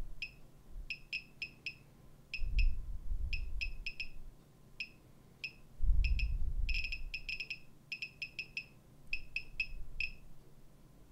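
Gamma Scout Geiger counter's beeper chirping once for each detected count at random, irregular intervals, a few a second: counts from radiation off thoriated welding electrodes. Two stretches of low rumble sound beneath the chirps, about two and a half and six seconds in.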